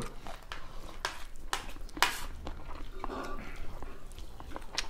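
People eating at a table: scattered sharp clicks of cutlery against plates and mouth smacks of eating, with a faint murmur about three seconds in.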